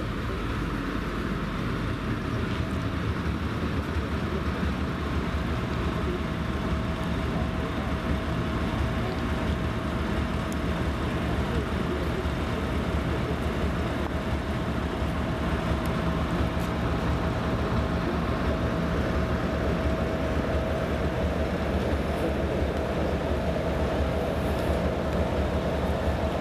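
Diesel engines of a 2M62U twin-section locomotive (two-stroke 14D40 V12) running steadily as it hauls a passenger train along the station track, with wheel and rail noise. A steady whine comes in a few seconds in and holds.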